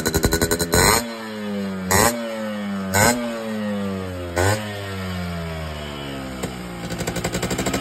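Yamaha two-stroke single-cylinder motorcycle engine being revved in short, sharp throttle blips, four in the first half, the revs falling back toward idle after each. Near the end it is held at a steadier, slowly rising speed with a fast pulsing exhaust beat.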